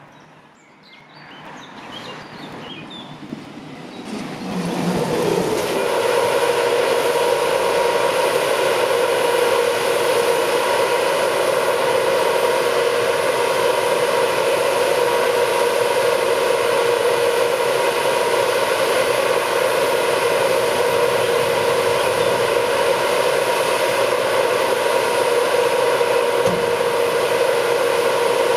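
ERO 6175XV grape harvester running, a loud even machine noise with a steady whine. It comes in about five seconds in, after a quiet start.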